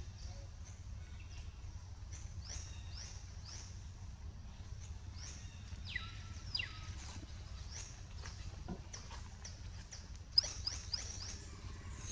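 Many short, high animal chirps, each falling in pitch, roughly one or two a second, with a longer falling call about six seconds in and a quick, louder flurry near the end, over a low steady rumble.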